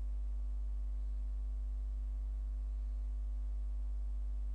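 Steady electrical mains hum with a low fundamental and a ladder of overtones, unchanging throughout.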